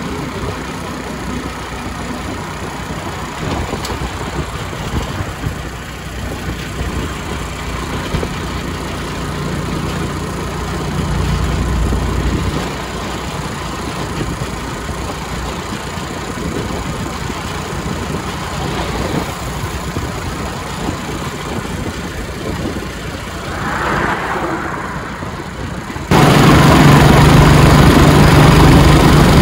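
Steady vehicle engine and road noise while travelling along a concrete highway, swelling briefly partway through and then jumping suddenly much louder a few seconds before the end.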